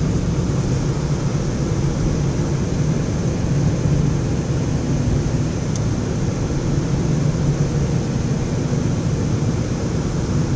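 Steady road noise inside a moving car's cabin: an even rumble of tyres and engine while driving at road speed.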